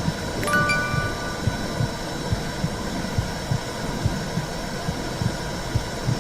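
Simulated womb sound: a muffled heartbeat thumping in regular double beats under a continuous whooshing rush. A soft chime note rings out about half a second in.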